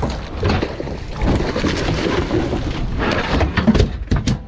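Wind buffeting the action camera's microphone over open water in a heavy low rumble, with crackling spatter throughout and a few sharp knocks near the end.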